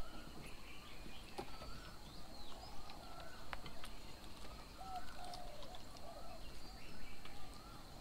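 Outdoor birds calling and chattering: short wavy whistled phrases repeating roughly once a second over a faint steady background, with a few sharp clicks.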